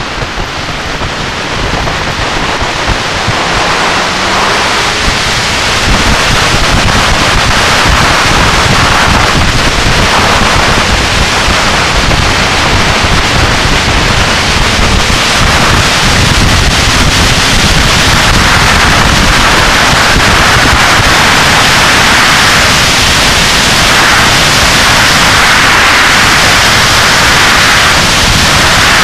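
Heavy wind rush on the microphone of a camera mounted on a motorcycle at speed, drowning out any engine note. It grows louder over the first several seconds and then holds steady.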